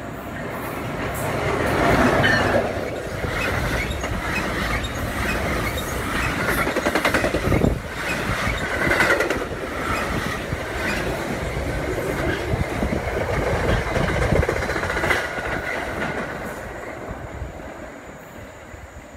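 A New Jersey Transit commuter train running past on the rails, swelling up over the first couple of seconds and fading away near the end. Its wheels clatter over the track, with a high wheel squeal now and then.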